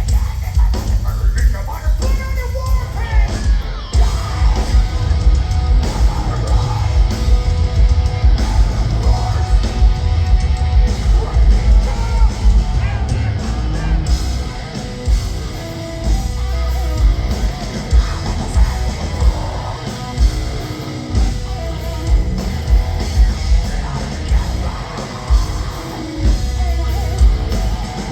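Heavy metal band playing live: distorted guitars and heavy drums under shouted, screamed vocals.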